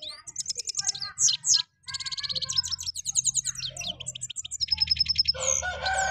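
Caged European goldfinches singing a fast, twittering, high-pitched song of quick trills and rattling runs of repeated notes, with a short pause a little under two seconds in. Near the end a lower, harsher sound joins in.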